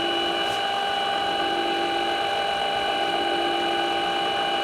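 Milling machine spindle running at steady low speed with a constant whine, turning an edge finder while the machinist waits for it to trip against the work.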